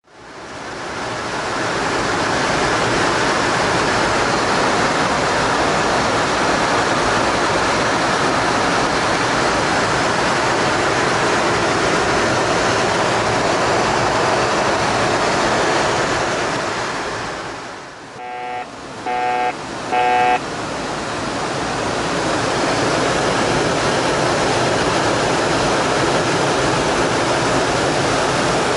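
Steady rushing flight-deck noise of an Embraer ERJ145 in flight: airflow and engine noise heard from the jumpseat. About two-thirds of the way through, the noise dips briefly and three short electronic beeps sound in quick succession.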